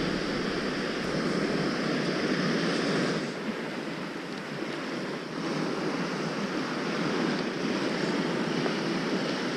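Small sea waves washing up a gently sloping sandy beach: a steady rush of surf that eases slightly about three seconds in and builds again a couple of seconds later.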